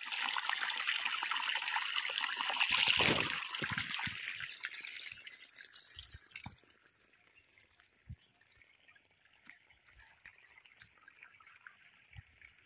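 Irrigation water gushing out of a pipe into a muddy furrow channel between potato rows, loud for about the first four seconds and then fading away.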